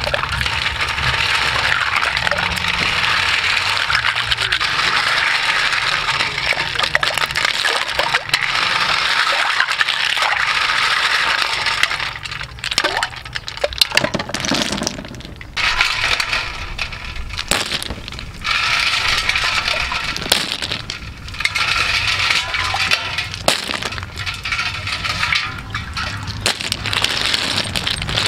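River snails being washed by hand in a steel bowl of water: splashing and sloshing with many small clicks and clacks of the shells knocking together, easing off briefly a few times midway.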